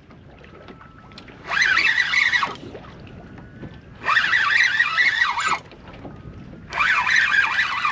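A fishing reel's drag screaming in three bursts of a second or so each, about a second and a half in, about four seconds in and near the end: a hooked smoothhound is running and taking line.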